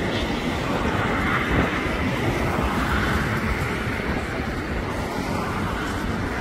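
Steady roar of road traffic passing close by, heavy in low rumble.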